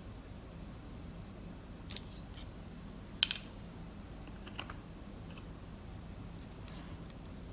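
A few sharp small clicks and taps of small metal lock parts and tools being handled and set down, the loudest about two seconds and three seconds in, with fainter ticks after.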